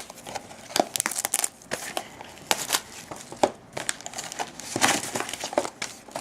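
Crinkling and tearing of packaging as a box of trading-card packs is opened and the pack wrappers are torn open, in irregular bursts of rustling and crackle.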